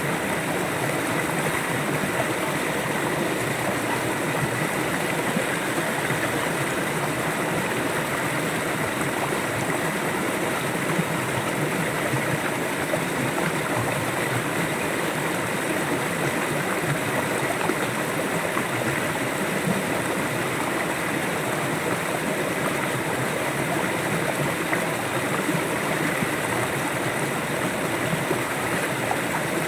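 River water flowing steadily, a continuous even rush with no breaks or changes.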